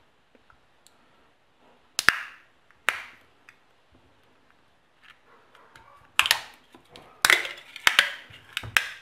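Knife blade prying up the glued plastic top cover of a small sealed lead-acid battery: sharp plastic snaps and cracks, two about two seconds in, then a quick run of them over the last three seconds as the cover works loose.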